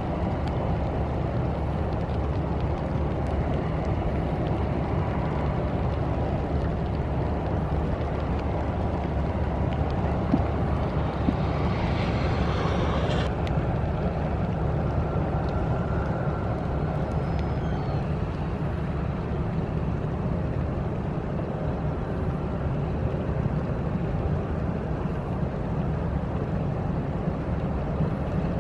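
Inland motor cargo ship passing, its diesel engine a steady low rumble under wind and water noise, with a brief swell of hiss about twelve seconds in.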